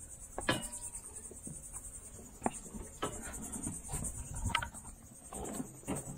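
Steady high-pitched insect buzz, with scattered short knocks and clicks from someone moving about on a boat's deck.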